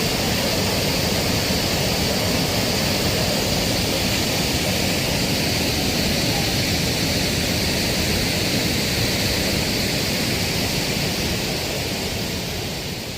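Dhuadhar Falls on the Narmada River, a large waterfall, making a steady rushing noise that fades out near the end.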